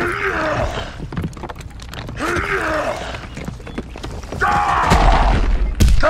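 A voice groaning with strain in three drawn-out efforts, then a deep boom with a sharp crack near the end.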